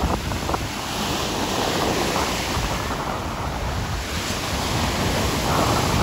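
Ocean surf breaking and washing up the sand, a steady rush of water, with wind buffeting the microphone as a low rumble.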